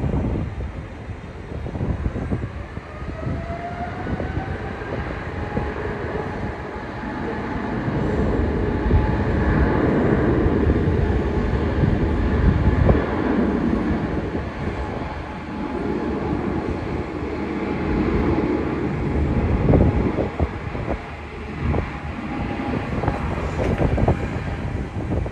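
Boeing 777-300ER's GE90 turbofans running at high power: a whine that rises over the first few seconds and then holds, over a heavy jet rumble as the airliner rolls down the runway.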